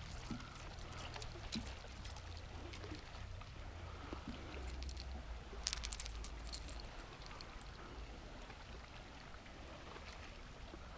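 Small water lapping and trickling against a fibreglass boat hull, over a steady low rumble, with scattered light clicks and knocks; a short cluster of sharper clicks about six seconds in as the lure and tackle are handled.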